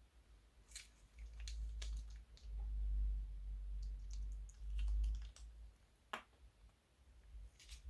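Crunchy slime being squeezed and worked by hand, giving scattered sharp clicks and crackling pops. A low rumble of handling runs under them for the first few seconds.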